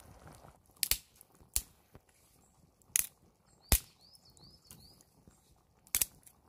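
Five sharp knocks or clicks at uneven intervals, the fourth the loudest. A small bird chirps four times between the fourth and fifth.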